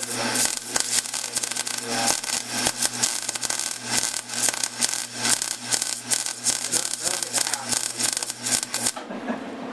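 Electric arc welding on a steering shaft: a steady, dense crackle of the arc over a low hum, cutting off about nine seconds in.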